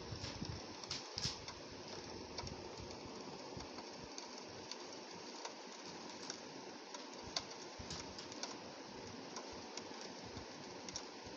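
Rain pattering on a window pane: a steady hiss with many small drop ticks scattered irregularly throughout.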